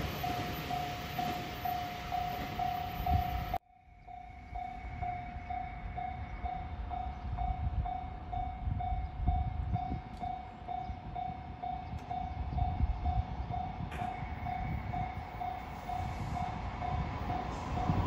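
Japanese level-crossing warning bell ringing in rapid, evenly repeated dings, about two to three a second, over the low rumble of a train. The sound cuts off abruptly about three and a half seconds in, then the bell resumes. The rumble grows near the end as a red diesel railcar approaches.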